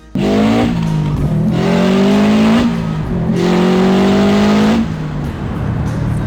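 Subaru STi's EJ257 turbocharged flat-four accelerating hard, its pitch rising through each gear and dropping at two upshifts, with the loud rushing hiss of a 44mm external wastegate dumping straight to atmosphere under boost. Near the end the throttle comes off and it settles to a lower, steady drone.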